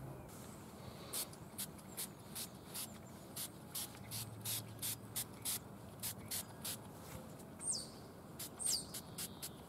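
Trigger spray bottle of headlight-restoration lubricant being pumped onto a plastic headlight lens: many quick squirts, about three a second. A bird chirps twice near the end, each call falling in pitch.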